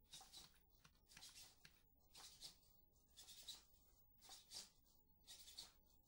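SpotMicro quadruped robot walking forward while turning left: faint rhythmic scuffing, about one burst a second, in step with its gait.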